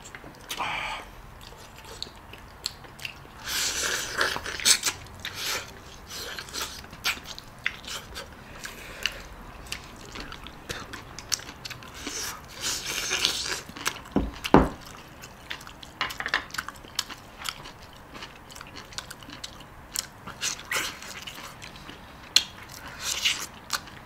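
People chewing and biting into braised chicken, with sharp clicks and crunches scattered throughout. There is one sharp thump about halfway through.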